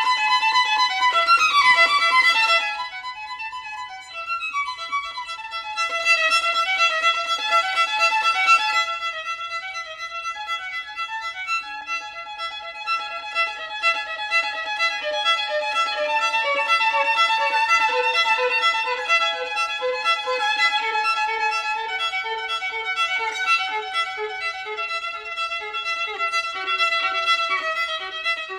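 Background music: a violin playing a melody of sustained notes, with sliding rising notes about a second in.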